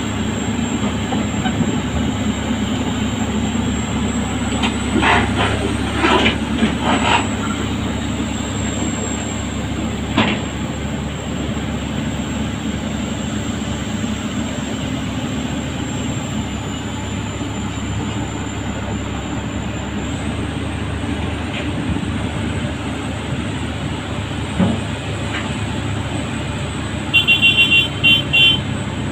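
Heavy-equipment diesel engine running steadily, with a few knocks a few seconds in and a quick run of short beeps near the end.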